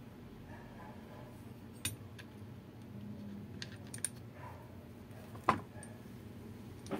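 Jigsaw parts being handled during reassembly: a few sharp clicks and clacks of the plastic housing and small metal parts knocking together, the loudest about five and a half seconds in.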